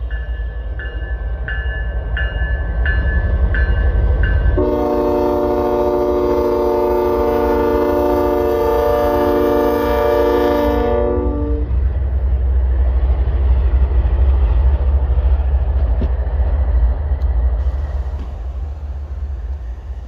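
Canadian Pacific diesel locomotive sounding its bell, about seven rings a little over half a second apart, then a long blast of its multi-chime horn lasting about seven seconds. After the horn stops, the low rumble of the locomotives and train rolling past carries on, easing slightly near the end.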